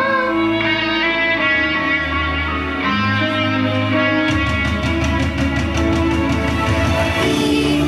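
Instrumental break in a pop song's backing track, with no voices: sustained pitched notes over a bass line. A steady beat comes in about halfway.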